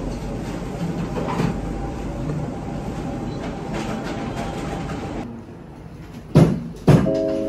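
Café room noise: a steady low rumble with a few faint clinks of tableware. Then two sharp knocks about half a second apart, and soft music with held notes begins near the end.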